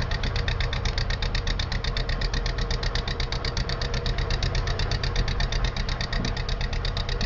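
Diesel engine of a Hunslet four-wheel diesel-mechanical shunting locomotive running under load, with a steady, rapid exhaust beat of about ten pulses a second.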